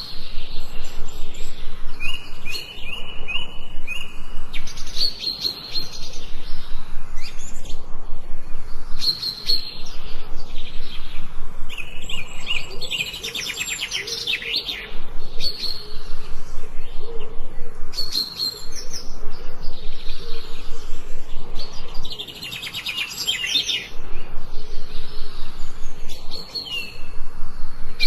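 Forest songbirds singing: short repeated high whistled phrases alternating with fast trills and quick falling runs of notes.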